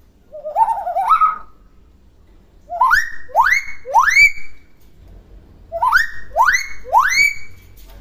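Common hill myna whistling: a short wavering call, then two runs of three sharp rising whistles, each sweeping quickly upward.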